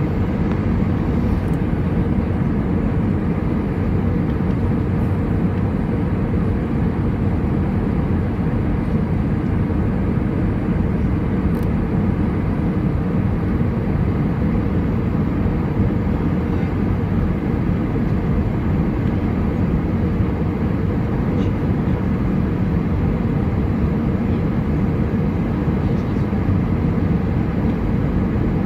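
Airbus A320 cabin noise on approach, heard from a seat beside the wing: a steady low rush of engine and airflow that does not change.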